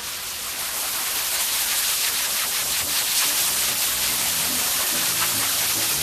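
Steady rush of air through a grooming hose nozzle held against a husky's thick coat, a loud even hiss. Background music with low notes comes in about halfway through.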